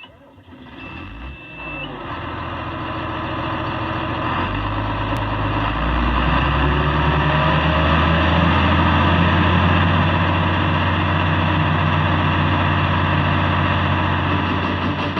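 Heavy diesel engine of farm machinery running, revving up about four and a half seconds in and then holding a steady, loud working speed, with a short steady beep near the start.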